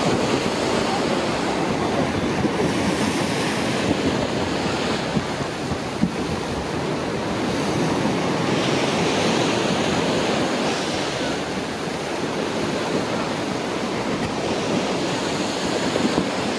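Steady rush of wind buffeting the microphone over the sound of moving water, swelling slightly about halfway through.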